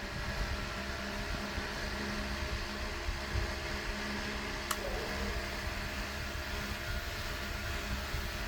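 Homemade battery-powered mini ceiling fan running, its small motor giving a steady whirring hum, with one sharp click about halfway through.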